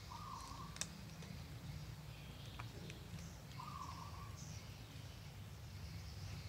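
A cat crunching dry kibble from a foam tray: faint, sparse clicks over a low steady hum. Two short even-pitched calls stand out in the background, one at the start and one a little past halfway.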